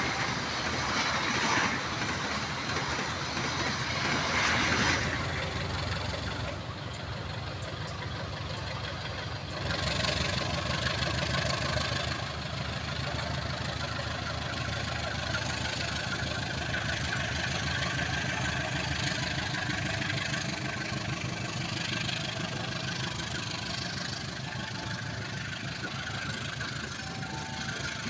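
Diesel-electric locomotive engine running with a steady low rumble.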